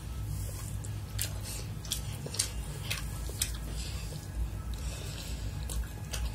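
Close-miked chewing and wet mouth smacks and clicks as a mouthful of chicken fried rice is eaten, with sharp clicks several times throughout.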